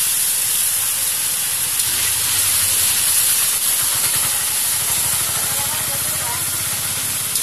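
Steady loud sizzling hiss of chicken curry frying in oil in a kadai while it is stirred with a metal spatula, with a low hum underneath.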